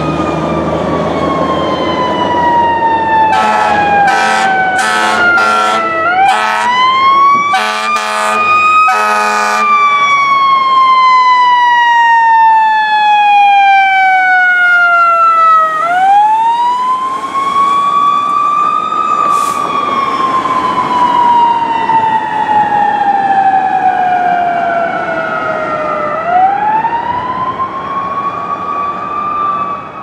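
Fire engine siren wailing: three times it rises quickly, then falls slowly over several seconds. A run of short air horn blasts sounds over it from about three to ten seconds in.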